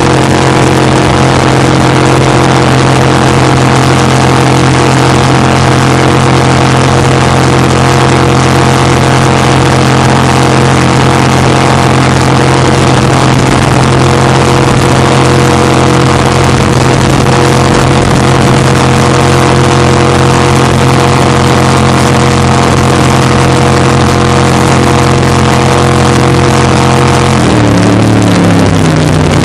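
Racing jet boat's engine running hard at a steady high pitch, heard close on board. Near the end the pitch drops as the engine slows.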